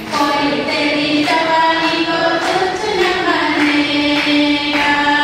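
A group of women singing together as a choir into microphones, with long held notes.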